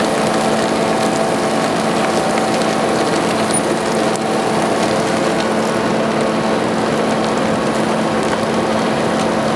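Small Vincent CP4 screw press running steadily, its electric motor and gearbox driving the screw while it presses shredded pistachio into press cake: a constant machine hum with a steady tone under a noisy mechanical wash.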